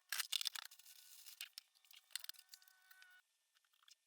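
Faint, sped-up rustling, crinkling and clatter of packaging and shop items being handled during a fast-forwarded clean-up, everything high-pitched with nothing low. It is busiest in the first second and dies down after about three seconds.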